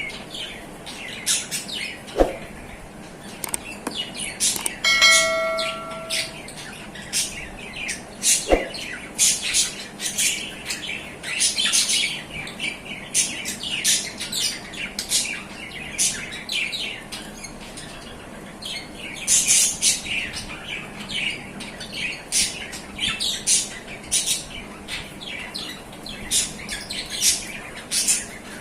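A pair of adult budgerigars chattering, with rapid short chirps and warbles that keep up all the way through. About five seconds in there is a short bell-like ring lasting about a second.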